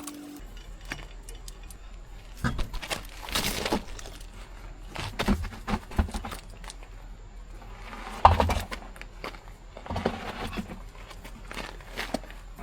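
Hand tools and metal brake parts clinking and knocking while a car's wheel and brake assembly are taken apart, in scattered irregular strokes with one louder knock about eight seconds in.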